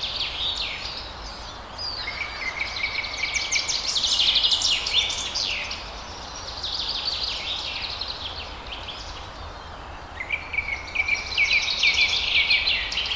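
Forest birds singing: overlapping chirps, quick sweeping calls and rapid trills. A phrase that opens on a held note and breaks into fast trilling comes about two seconds in and again near ten seconds, over a faint low background rumble.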